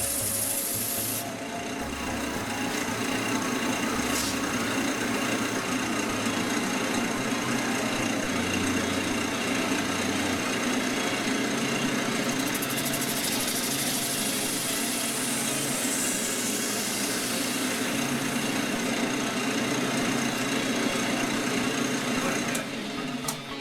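Wood lathe running steadily with a canvas spinning on it, giving an even mechanical whir over a low motor hum. The sound drops away abruptly just before the end.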